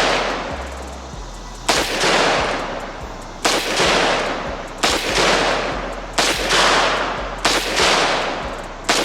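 Micro Draco AK-style pistol in 7.62×39 fired in slow single shots, six in all, about a second and a half apart. Each shot is very loud, with a long echoing tail that fades before the next.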